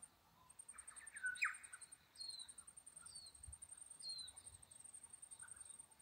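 Small wild birds calling: a louder call with quick sliding notes about a second and a half in, then three short high notes, each falling in pitch, about a second apart. A faint, very high, fast-pulsing tone runs underneath.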